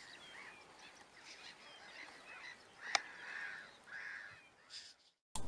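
Faint calls of distant waterbirds: several short calls that rise and fall, with a single sharp click about three seconds in.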